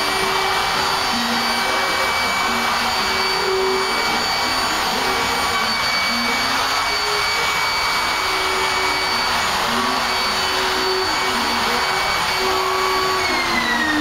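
Porter-Cable router running at full speed with a steady high whine, cutting chambers into a redwood surfboard stringer. Near the end its pitch falls as the motor winds down.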